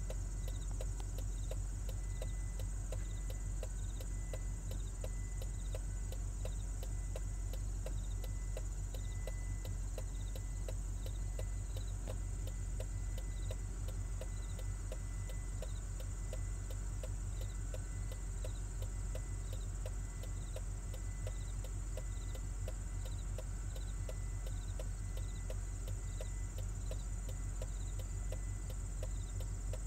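Steady outdoor background: a continuous high-pitched drone, rapid evenly spaced clicking and a low rumble.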